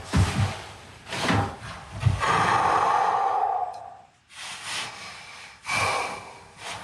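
A few dull thuds, then a long scraping rub lasting about a second and a half, followed by two more shorter rustling scrapes.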